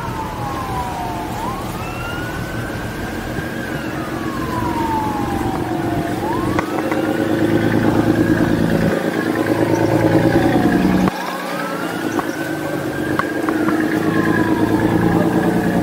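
Emergency vehicle siren wailing, its pitch sweeping slowly up and down about once every five seconds and growing louder, over the steady low running of a boat's engine.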